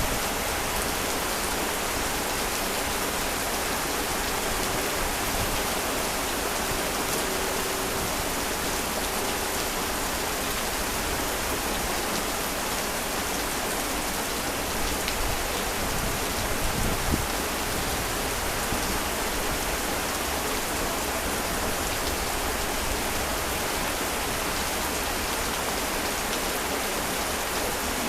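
Heavy rain falling steadily, a dense even hiss of rain on surfaces, with a few slightly louder spatters about halfway through.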